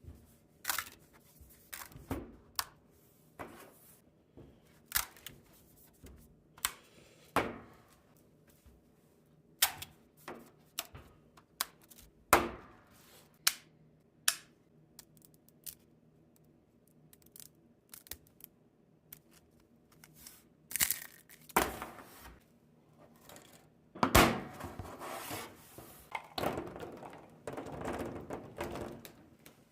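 3D-printed plastic print-in-place boxes being handled: scattered sharp clicks and knocks of plastic parts, then a longer rasping, scraping stretch in the last six seconds or so.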